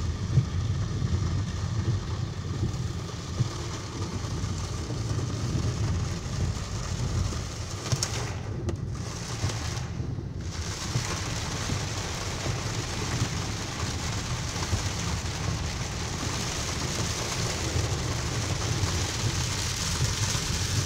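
Heavy downpour hissing steadily on a car, heard from inside the cabin over the low rumble of the moving car. The hiss dips out briefly twice about halfway through.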